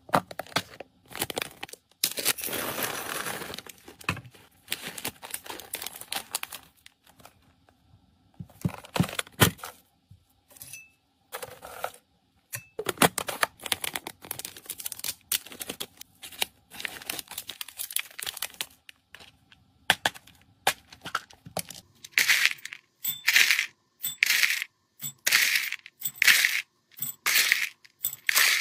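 Hands packing dry cat kibble: clicks and taps of a plastic storage box and its lid, crinkling of clear plastic packaging, and, over the last several seconds, dry kibble rattling as it is scooped and poured into a glass bowl.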